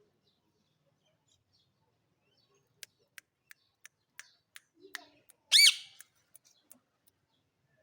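Indian ringneck parakeet: a run of short, sharp clicking chirps about three a second, then one loud, shrill squawk about half a second long, followed by a few faint clicks.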